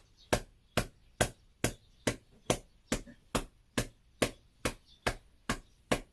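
A hand patting a person's back in a steady rhythm, a little over two pats a second. This is back percussion (pai bei) given to an elderly patient who is coughing but cannot bring up phlegm, to loosen it.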